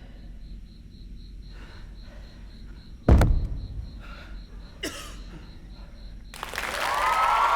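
A hushed pause with a few faint breathy sounds and a small hiccup, broken about three seconds in by one sudden loud thump. Near the end an audience's applause breaks out and swells.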